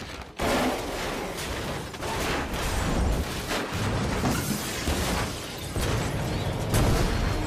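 A taxi cab crashing and rolling over: a dense run of crunching impacts and breaking glass with heavy low thuds throughout.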